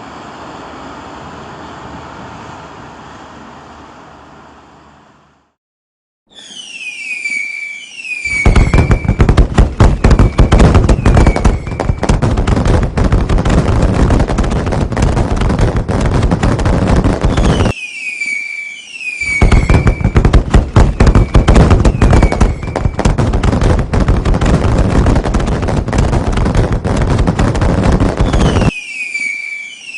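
Fireworks sound effect: several whistles that drop in pitch, then a dense, loud barrage of bangs and crackles, the sequence starting over about every 11 seconds. It follows a steady noise that fades out over the first five seconds.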